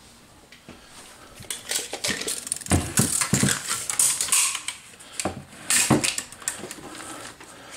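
Steel tape measure being picked up, pulled out and laid across an amplifier's casing: a run of metallic clicks and rattles from the blade, with a few sharper knocks. It starts about a second and a half in and dies down near the end.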